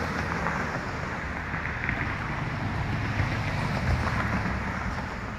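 Steady outdoor background noise: a low rumble with a hiss over it, and no clear woodpecker tapping standing out.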